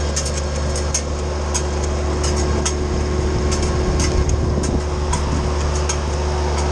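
Kioti subcompact tractor and Titan wood chipper running steadily together, a constant low engine drone with a steady hum above it. Irregular sharp ticks and clicks are scattered throughout.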